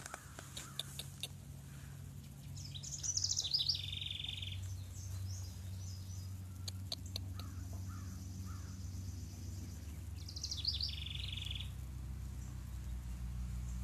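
A songbird singing twice, each song a quick run of high, falling notes ending in a buzzy trill, over a steady low hum. A few light clicks come in between.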